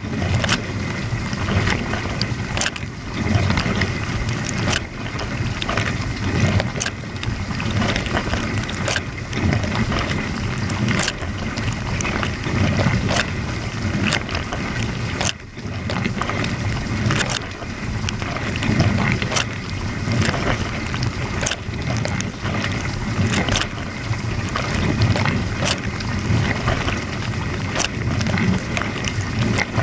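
Water spraying and sloshing inside a running dishwasher during its wash cycle, recorded from inside the tub, with a sharp tick about every two seconds.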